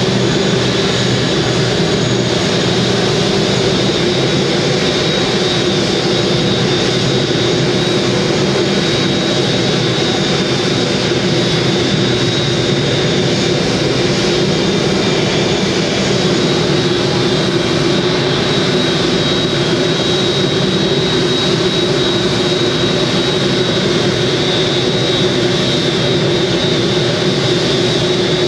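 Airbus A380's Engine Alliance GP7200 turbofan engines running steadily at idle: a high, even whine over a constant rumble, with no change in pitch or level.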